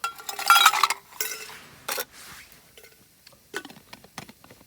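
Eating utensils scraping and clinking against a dish as food is picked up: a loud scrape and rattle in the first second, a couple of sharp clinks, then lighter scattered clicks.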